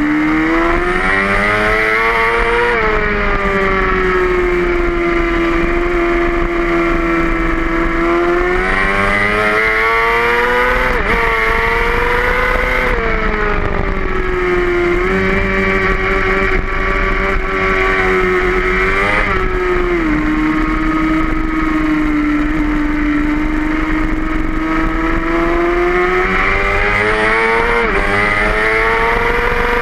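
Racing motorcycle engine under way on track, heard close up from the bike. It revs up and drops sharply in pitch at gear changes about four times, and is held at a nearly steady pitch or eases off in between.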